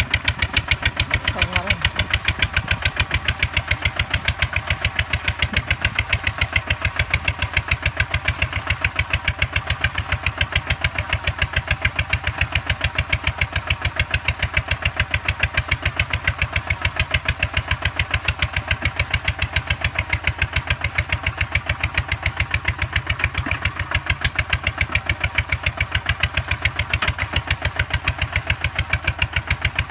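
Two-wheel walking tractor's single-cylinder diesel engine chugging steadily in quick, even beats while it plows through wet mud.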